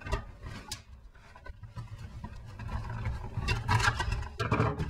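Screwdriver work on a Roomba robot vacuum's plastic chassis: scattered clicks and knocks of metal on plastic, with a low rumble of handling that grows stronger and busier with rattles in the last second and a half.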